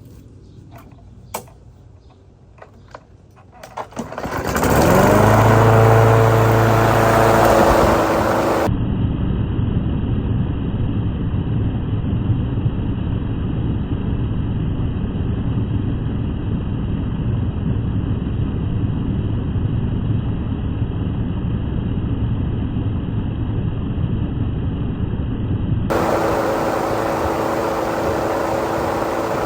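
Walk-behind lawnmower engine pull-started about four seconds in after a few clicks, rising in pitch as it catches and then running steadily. The blade and crankshaft are bent from striking a post, and the mower vibrates heavily as it runs.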